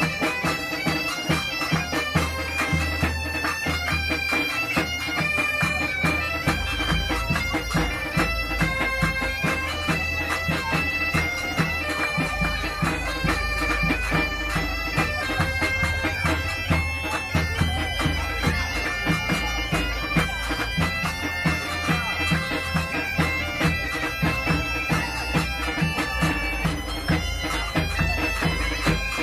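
Background music led by bagpipes: a melody over steady drones, with a regular beat.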